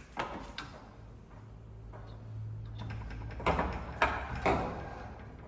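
Knocks and clatter of hardware being fitted to a wooden teak door, with three sharp knocks about half a second apart in the second half, over a low steady hum.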